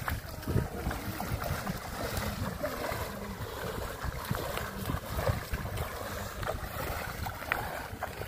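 Shallow river water splashing as a person and a dog wade through it, with a few sharper splashes, over a steady low rumble of wind on the microphone.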